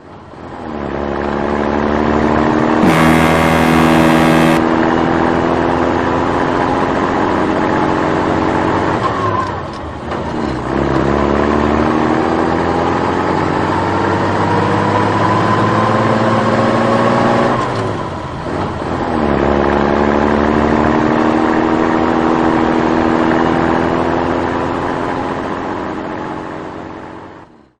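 An engine accelerating through gears: its pitch climbs steadily, drops back at each shift about nine and eighteen seconds in, then climbs again. A brief, harsher sound with hiss cuts in about three seconds in.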